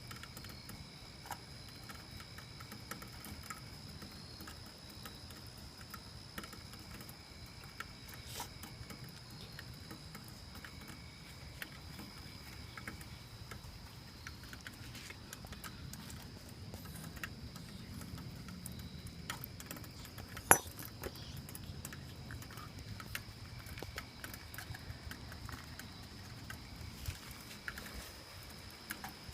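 Quiet outdoor ambience: a steady high insect drone with a fainter on-and-off chirping, over a low rumble. Scattered small clicks and taps, with one sharp click about twenty seconds in.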